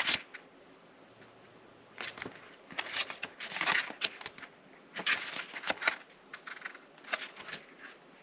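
Paper booklet pages being turned and handled: short crisp rustles about every second or two.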